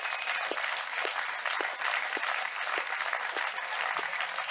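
Audience applauding steadily, with a faint regular knock about twice a second.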